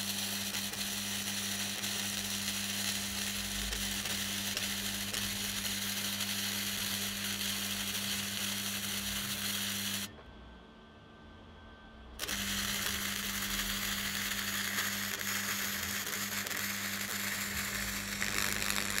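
Wire-feed welding arc on a 3D-printer-mounted welding torch, crackling and hissing steadily with a low buzz as it welds onto sheet steel. The arc cuts out for about two seconds a little past the middle, then strikes again and keeps crackling.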